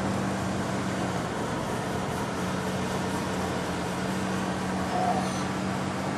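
Car driving at steady speed: engine and tyre noise with a low steady hum.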